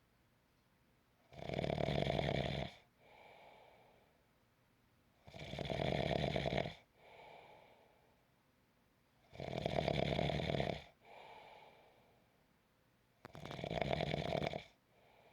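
Steady snoring: four loud snores about four seconds apart, each followed by a fainter breath.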